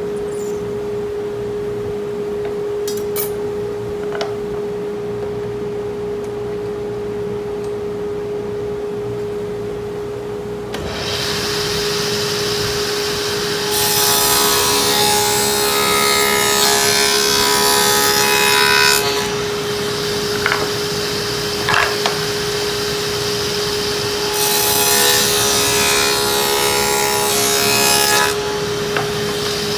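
Table saw fitted with a stacked dado blade cutting grooves in wooden strips: two passes of about four to five seconds each, one about midway through and one near the end, over the steady hum of the running saw.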